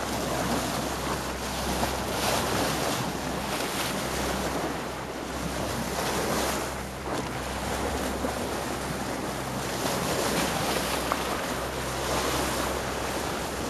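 Sea water rushing and splashing along the bow of a moving boat, with wind buffeting the microphone.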